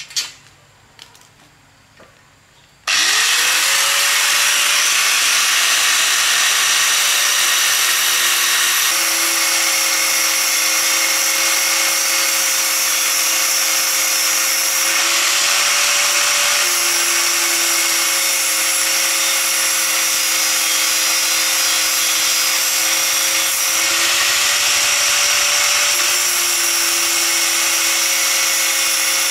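A few light clicks, then about three seconds in a power tool switches on: its motor whine rises as it spins up, and it runs steadily with a loud dense hiss, the motor pitch shifting slightly now and then.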